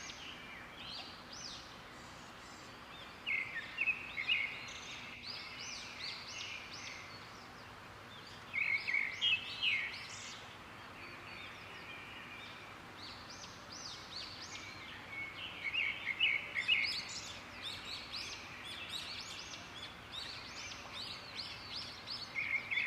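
Small birds chirping in several bouts of rapid high calls a few seconds apart, over a steady faint background hiss.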